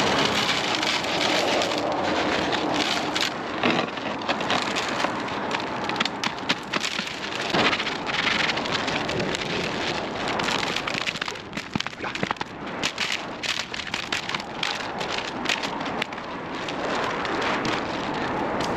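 Rock salt pouring from a bag into a spreader hopper: a dense crackling hiss of grains with many sharp ticks, thinning for a few seconds in the middle.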